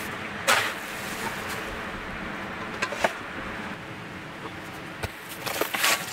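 Shovel blade scraping into damp sand and the sand dropping into a metal bucket, three scoops: about half a second in, about three seconds in, and near the end. The sand is the salt-bearing sand worked at a salt spring.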